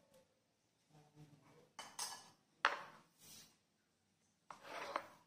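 Glass bowls being handled on a wooden board: a few clinks and knocks, the sharpest about two and a half seconds in, then a longer sliding, handling noise near the end.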